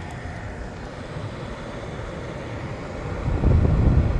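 Air conditioner running steadily with its compressor on, a low mechanical hum. About three seconds in, a deeper rumble grows louder. The unit is cooling poorly, which the owner takes as a sign that something is wrong with it.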